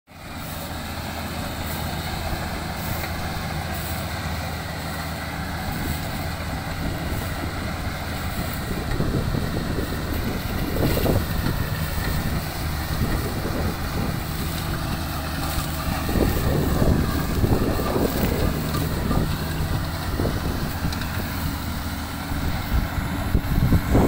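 Crawler rice combine harvester running steadily while cutting through standing rice, its engine holding an even drone. From about halfway in, irregular gusts of wind noise hit the microphone.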